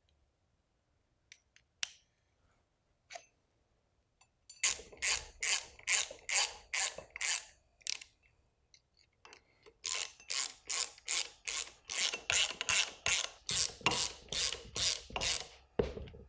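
Hand socket ratchet clicking in quick, even strokes, about three a second, as bolts are run down hand tight into the master chuck of a gas post driver. It goes in two spells, a short one about a third of the way in and a longer one from about ten seconds, with a few single clicks before.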